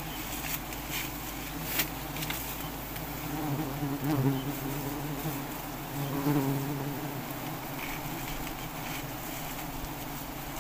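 A swarm of giant honeybees buzzing steadily around their open comb, swelling louder twice in the middle. A few sharp clicks sound in the first couple of seconds.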